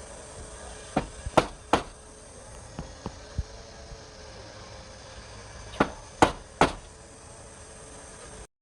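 Sharp knocks of hard objects in two quick groups, three or four about a second in and three more about six seconds in, with a few lighter taps between, over a faint steady hum.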